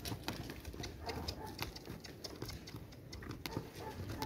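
Horse's hooves stepping and scuffing on stony dirt as it prances on a lead, a string of irregular small knocks.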